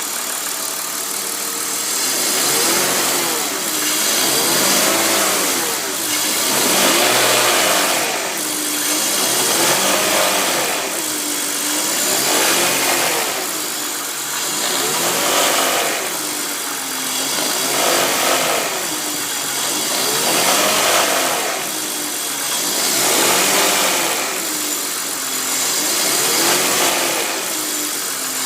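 BMW E46 engine running from cold, its revs rising and falling in regular swells about every two and a half seconds.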